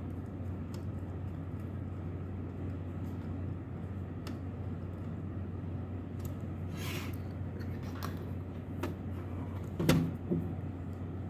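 Small metal computer module being handled while its side panels are screwed back on: scattered light clicks, a short scrape about seven seconds in and a sharp clack near the end, over a steady low hum.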